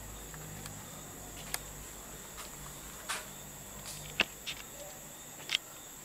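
Scattered footsteps and sharp snaps on rubble and dry debris, the loudest about four seconds in and again about five and a half seconds in, over a steady high chirring of crickets.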